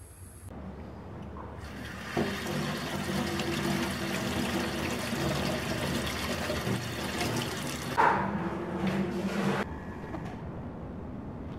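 Water running steadily, like a tap pouring into a sink or basin, with a brief louder surge about eight seconds in; it starts about two seconds in and cuts off suddenly.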